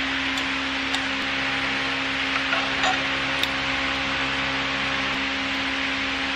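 Steady background hum and hiss, with a few light clicks and taps as a metal engine cover plate and hand tools are handled.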